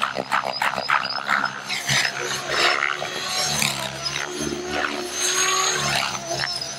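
Radio-controlled aerobatic helicopter flying hard 3D manoeuvres, its rotor blades swishing and its drive whining, the pitch gliding up and down as it flips and swoops past.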